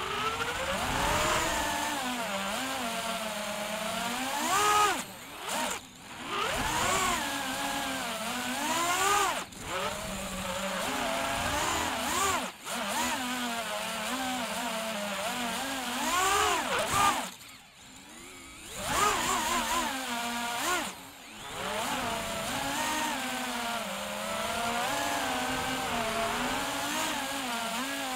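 FPV quadcopter's brushless motors and propellers whining, the pitch rising and falling as the throttle changes. It cuts briefly several times, and about two-thirds of the way in it almost drops out for a second before spooling back up.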